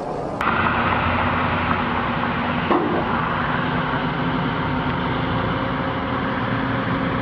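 Heavy semi-truck engine running with road noise as it hauls an oversize load past, a steady drone. A brief higher-pitched sound about two and a half seconds in.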